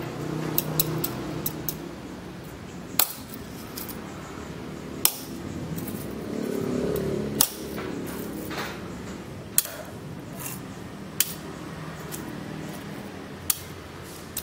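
Iron dagger striking a patch of steel-ring chainmail laid on a tree trunk: about six sharp metallic strikes, roughly two seconds apart, with lighter clicks of the rings in the first two seconds, over a low steady hum.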